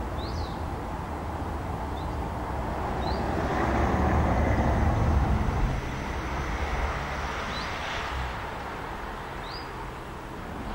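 A vehicle driving past, its noise swelling to a peak in the middle and fading away, over steady outdoor background noise. Short high bird chirps sound every second or two.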